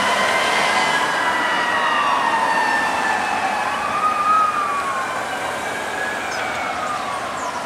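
Several fire-rescue emergency vehicle sirens sounding together in slow rising and falling tones as the vehicles drive away, gradually fading.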